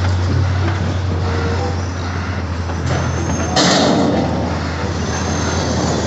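Heavy diesel machinery of an excavator loading a Volvo A45G articulated dump truck, running with a steady low drone. About three and a half seconds in, a loud rush of rock dropping into the hauler's steel dump body lasts about a second.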